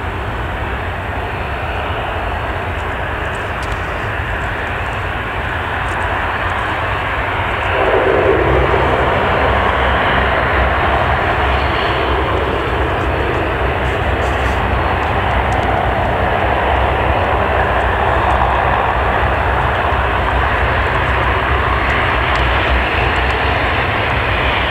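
Airbus A330 airliner's jet engines running as it taxis, a steady rushing sound that grows louder about eight seconds in.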